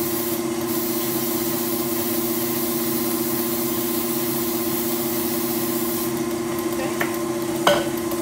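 Aerosol baking spray hissing as it coats a fluted bundt pan, over the steady hum of a stand mixer beating cake batter. A couple of sharp knocks near the end.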